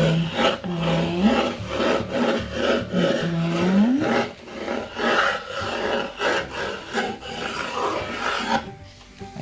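Pencil scratching across a painted wooden board in a run of short, uneven strokes as letters are sketched out.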